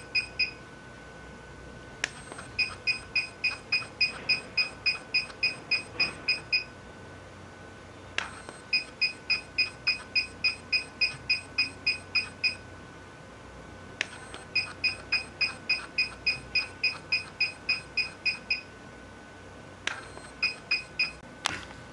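HIFU machine beeping as it fires ultrasound pulses through the 3.0 mm transducer: trains of short, evenly spaced high beeps, about three a second for about four seconds, separated by pauses of about two seconds. Each pause is marked by a single click, and a faint steady high tone runs underneath.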